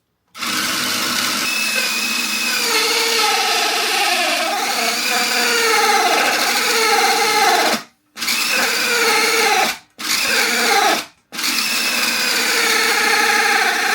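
Lego-built table saw with a plastic blade, its small electric motor whining while it cuts through card. The pitch keeps dipping and wavering as the blade bogs down, a sign it is struggling to get through. The sound cuts off abruptly three times in the second half.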